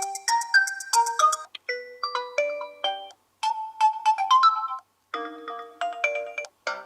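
Built-in alarm tones of a Realme C21y phone playing through its speaker: short melodic phrases of bright tones, each cut off after about a second and a half by a brief silence, as the tones are previewed one after another.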